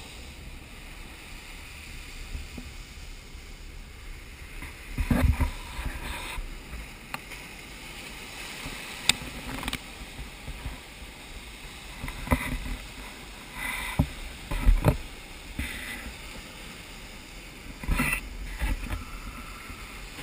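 Seawater sloshing and splashing around a camera at a lava ocean entry, with several heavy irregular thuds.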